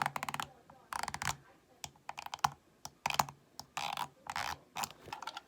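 Plastic fidget cube (Sensory FX ASMR Recorder Cube) being worked by hand. A quick run of clicks at the start, then irregular clicks and short scratchy rubbing sounds from its buttons and textured sides.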